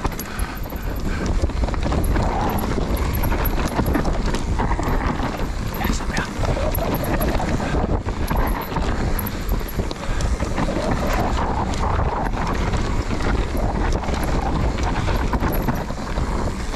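Mountain bike riding fast down a dirt forest trail: wind rushing over the microphone, knobbly tyres rolling over dirt, and the bike rattling and knocking over bumps.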